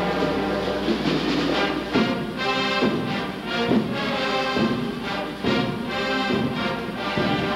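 High school band music with brass, playing with a steady beat of about one strong note a second.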